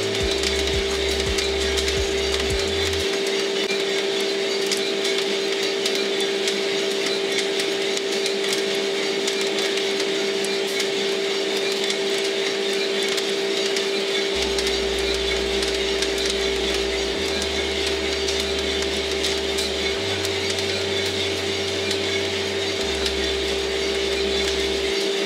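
Small drum coffee roaster running with a steady hum from its drum motor and fan, scattered with sharp pops from the beans in first crack.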